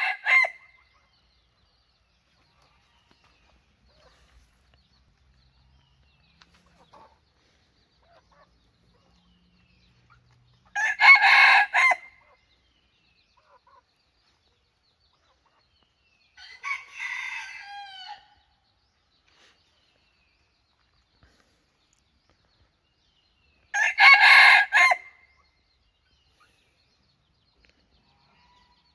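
Tethered red junglefowl decoy rooster crowing: three short crows of about a second each, at the start, about eleven seconds in and near twenty-four seconds, with a softer, falling call in between.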